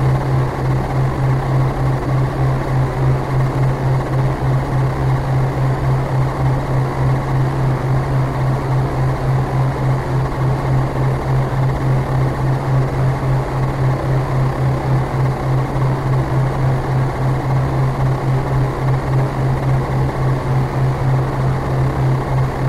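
Synthesized futuristic sound effect: a loud, steady low hum that pulses about three times a second over a constant rumbling hiss, like the drone of a hovering craft.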